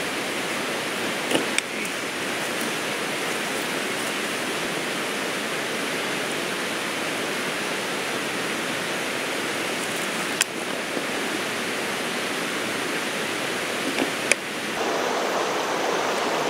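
Steady rushing of a nearby river, with a few short clicks. The sound grows a little louder and fuller near the end.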